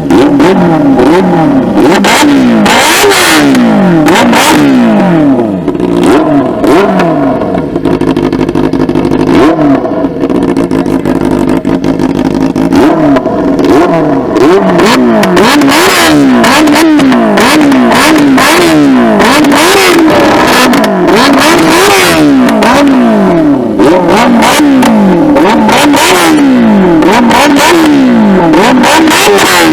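Benelli 600i inline four-cylinder engine revved over and over in quick throttle blips, its pitch rising and falling with each blip through the exhaust. There is a steadier stretch about halfway through.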